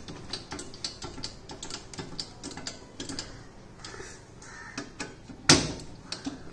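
Hand screwdriver driving screws through a metal TV mounting plate: irregular light clicks and scrapes of the bit turning in the screw heads, with one sharp knock about five and a half seconds in.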